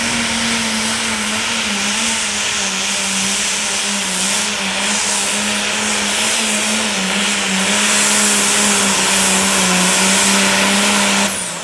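Turbocharged diesel super farm pulling tractor at full power down the track, its engine holding a steady pitch with a high turbo whine over it. Near the end the engine drops off and its pitch falls as the throttle comes back.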